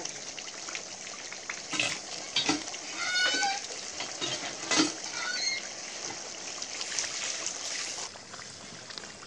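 Mutton curry sizzling and bubbling in a kadai, with a metal ladle knocking and scraping against the pan a few times. A short high-pitched call sounds about three seconds in.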